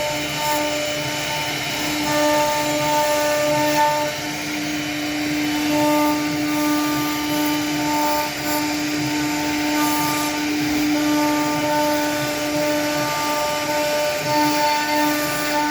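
Woodworking CNC router running, its spindle giving a steady whine over a motor hum, with higher tones that start and stop every second or two as the machine moves.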